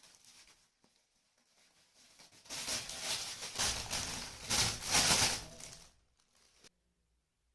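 Close-up crinkling and tearing of a shawarma's wrapper being handled and pulled open. It starts faint, grows loud about two and a half seconds in, and stops sharply near the end.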